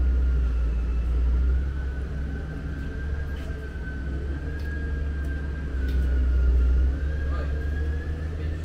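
Railway station platform ambience: a heavy low rumble with a steady high-pitched whine that wavers slightly in pitch.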